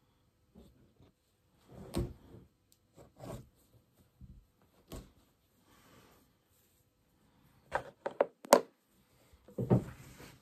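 Handling noise from a rug-making frame and the hessian coming off it: scattered knocks, then a quick run of about four sharp clicks near the end, the loudest sound here, and a heavier thump just after.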